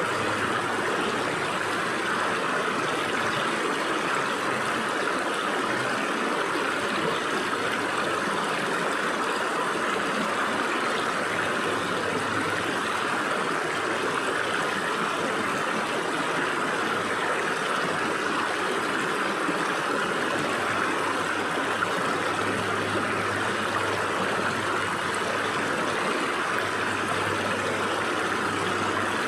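Stream water running steadily over and between rocks, an even rushing burble, with a faint low hum coming and going underneath.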